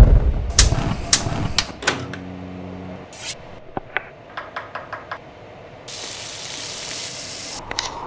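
Gas burner flames rumbling with sharp clicks at the start, then a thermostat knob clicking about five times in quick succession as it is turned, and a steady high hiss for over a second near the end.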